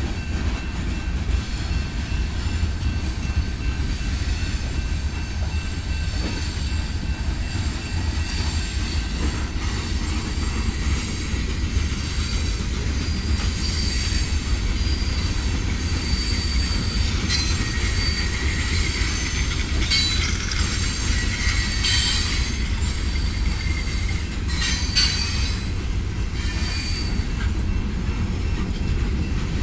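Freight cars of a Norfolk Southern mixed freight train rolling past: a steady low rumble of wheels on rail, with high-pitched wheel squeal that grows louder about halfway through.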